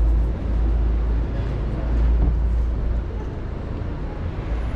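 City street ambience: a steady low rumble of road traffic with faint voices of passers-by, easing off somewhat about three seconds in.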